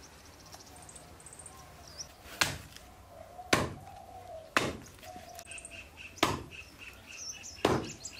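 Five heavy chopping strikes, a knife coming down on a block about every one to one and a half seconds. Birds chirp and trill faintly in the background.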